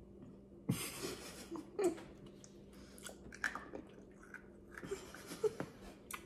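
Mouth crunching and chewing hard fizzy tablet sweets (Refreshers), in scattered small crunches and clicks, with a short breathy puff about a second in.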